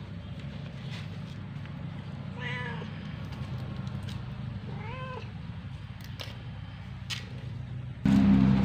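Young tabby-and-white cat meowing twice, each meow a short call that rises and falls in pitch, about two and a half seconds apart. Near the end a louder, steady low hum cuts in.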